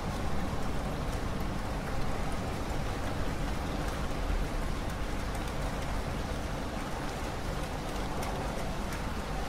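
Steady rain falling: an even hiss with scattered small drop ticks.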